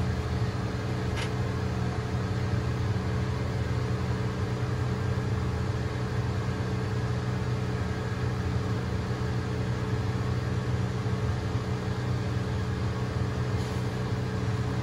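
Electric hair clippers running with a steady hum while the barber works around a toddler's head.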